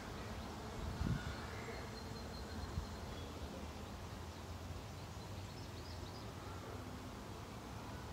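Quiet outdoor ambience: a low steady rumble, a brief low thump about a second in, a short click near three seconds, and a few faint high chirps.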